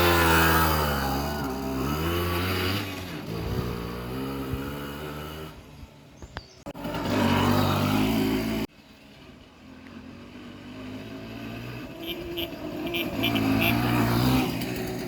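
Simson S51 moped's 50 cc two-stroke single-cylinder engine running and revving, its pitch falling over the first few seconds and rising again later, with two abrupt cuts between clips. It is an all-original engine that runs very quietly.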